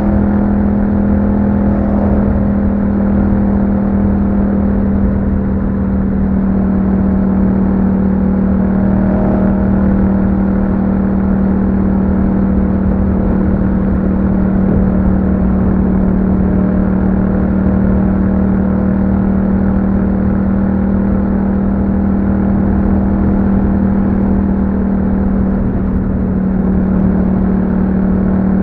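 2021 Yamaha MT-07's 689 cc parallel-twin engine running through an Akrapovic exhaust with a dB killer fitted, holding one steady, unchanging pitch throughout.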